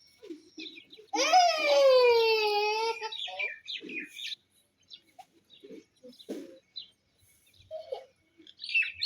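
Chicks peeping in short high chirps. About a second in, a loud long call of about two seconds rises and then falls in pitch.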